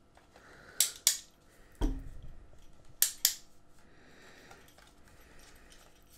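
Tripod leg hinges clicking as the legs are worked at their joints: two pairs of sharp clicks about two seconds apart, with a soft thump between them.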